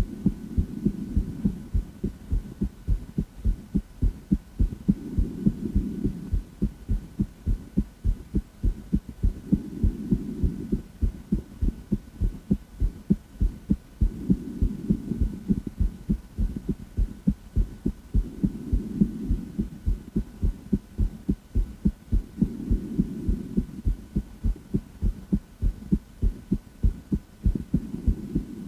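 A woman's heart heard through a stethoscope or chest microphone, beating steadily and evenly in a regular lub-dub rhythm. A soft rushing swell rises and fades about every four to five seconds under the beats.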